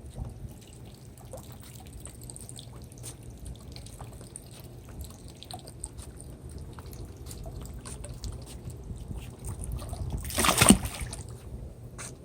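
Liquid trickling and pouring, with scattered small clicks and a short, loud rush of noise about ten seconds in.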